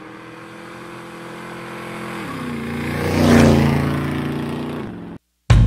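A motor vehicle's engine passing by. It builds to a peak about three seconds in and then fades, with its pitch stepping down a little past two seconds. It cuts off abruptly about five seconds in.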